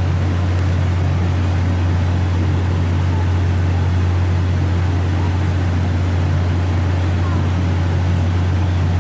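Diesel engine of VIA Rail locomotive 6412 running steadily: a constant low drone with no horn sounding.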